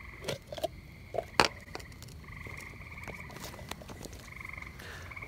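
Frogs trilling in repeated pulsed calls, each about a second long. Sharp clicks and knocks of the headlight being handled come in between, the loudest about a second and a half in.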